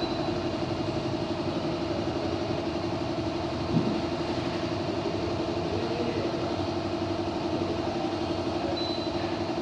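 AUX ASW-18A4/EA mini split air conditioner running: a steady hum with a strong, slightly fluttering tone. One short knock about four seconds in.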